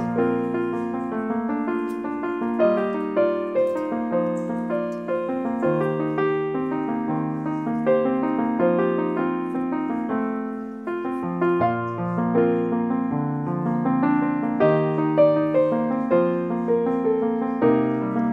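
Background music: a piano piece of single notes struck one after another over held lower notes, at an unhurried, even pace.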